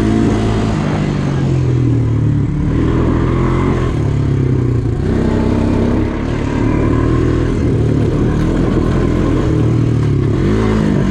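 ATV engine running under load on a trail ride, its pitch rising and falling as the throttle is worked, with clattering over rough ground.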